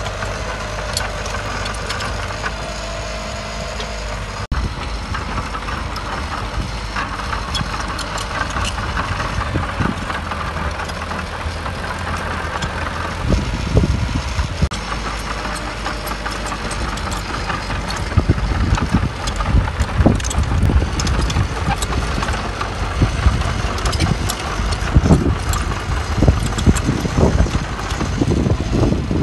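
Diesel engine of heavy earthmoving machinery running steadily, with irregular knocks and clunks joining in through the second half.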